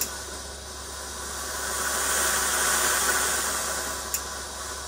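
Weijie 999 gravity-feed industrial steam iron releasing steam from its soleplate in a steady hiss that swells slightly midway, with a light click about four seconds in.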